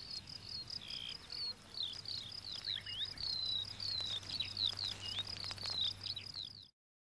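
Crickets chirping: a high, fast, regularly pulsing chirp with many short falling chirps over it. The sound cuts off abruptly near the end.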